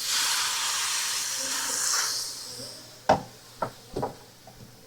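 Soy sauce sizzling in a hot wok of fried rice, a loud hiss that fades away over about two and a half seconds. Three sharp knocks follow in the second half.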